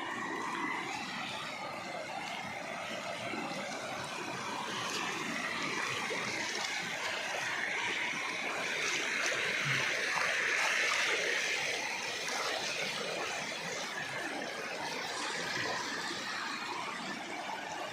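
Floodwater of a swollen stream rushing steadily, getting a little louder about halfway through.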